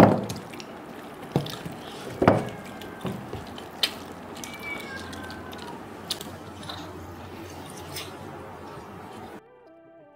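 Wet eating sounds of whole grilled chicken being torn apart by hand and chewed, with scattered sharp smacks and clicks, the loudest at the very start and about two seconds in. Background music comes in near the end.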